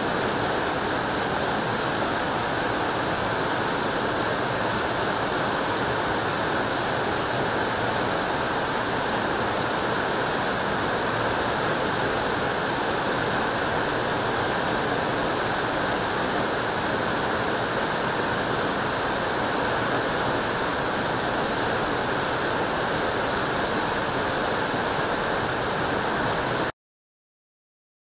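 River rapids rushing over rocks in whitewater: a steady, loud rush of water that cuts off abruptly near the end.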